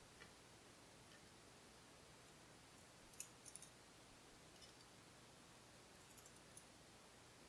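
Near silence broken by a few faint light clicks, with one sharper click about three seconds in: small steel springs and pins being handled as they come out of the top of a gutted pin-tumbler lock.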